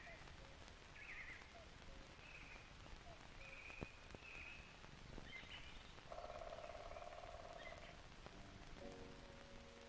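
Faint birdsong over a light hiss: short chirps repeating about once a second, with a longer held note a little past the middle. Quiet music begins with held notes near the end.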